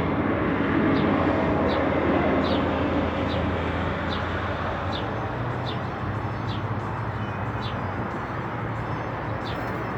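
Steady low hum of a nearby vehicle engine with outdoor traffic noise, easing off slowly, under short high chirps repeated about once or twice a second from a sparrow.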